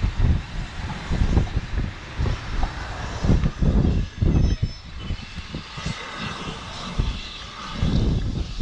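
A rake of railway passenger coaches rolling past on the track, with heavy gusts of wind buffeting the microphone.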